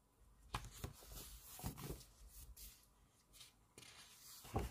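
Pages of a large photobook being turned by hand: a few short, faint paper rustles and slides, with the loudest flap near the end as a page settles.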